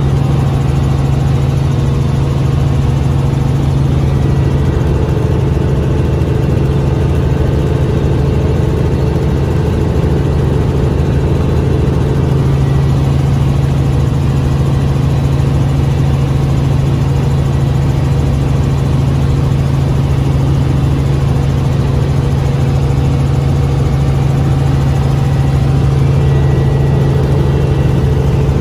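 Helicopter in flight, a loud, steady engine and rotor drone that does not change.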